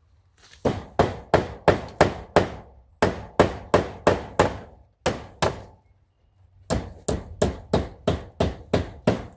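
Hammer striking nails into wood to fasten chicken fence wire, sharp blows about three a second in runs of several, with short pauses between runs.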